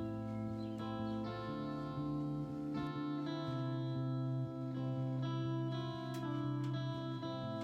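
Background music: guitar-led instrumental with plucked and strummed chords.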